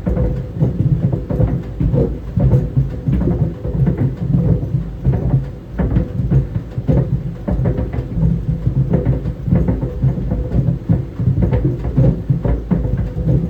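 Tennis balls tumbling in a running clothes dryer, thumping irregularly against the drum several times a second over the machine's steady hum.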